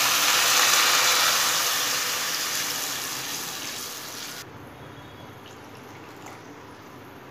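Water poured from a steel tumbler into a hot kadai of vegetables frying in oil: a loud hiss starts as the water hits and fades away over about four seconds, leaving a softer sound of pouring and simmering.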